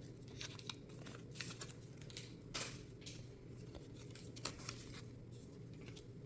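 Faint scattered rustles and small clicks of a Pokémon TCG booster pack's foil wrapper and cards being handled, a few short sounds each second, with a slightly louder rustle about two and a half seconds in.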